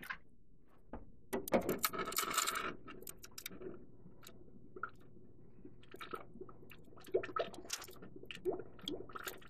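A short splash of water into the kitchen sink about a second and a half in, then a glass clinking against a Frigidaire fridge's water dispenser while the dispenser spits water in short, irregular spurts. The spitting is air working out of the line through a newly installed water filter.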